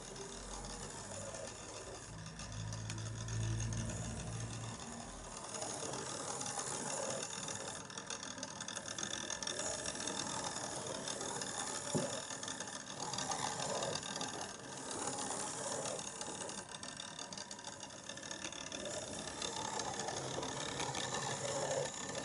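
Clockwork mechanism of a replica c.1800 optical cabinet running steadily, turning the windmill sails of a moving picture, with one sharp click about halfway through.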